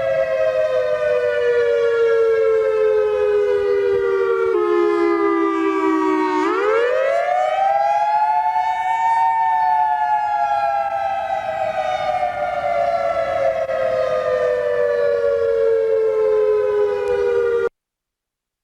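Federal Signal EOWS 612 fire siren sounding a wail. Its two-tone chord slides down in pitch, climbs back up about six seconds in, then slowly falls again until the sound cuts off suddenly near the end.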